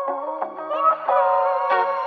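Background music: an instrumental melody of held notes changing pitch every half second or so.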